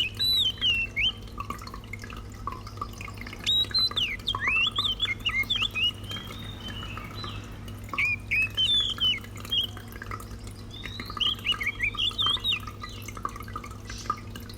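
Pet water fountain trickling, its small pump giving a steady low hum, while birds chirp in four short bursts of quick rising and falling notes.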